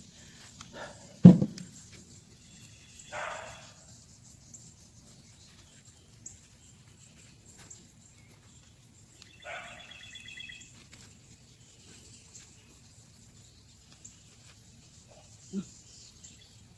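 A single heavy thud about a second in, and a smaller one near the end, from digging in the soil. Twice in between, an animal gives a short harsh call: the second call is about a second long.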